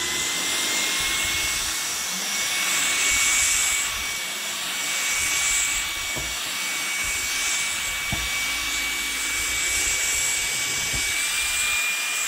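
LG CordZero cordless stick vacuum running at a raised suction level, a steady motor whine over a rush of air as its bristle carpet brush head is pushed over a rug. The whine steps up slightly in pitch at the start and again near the end.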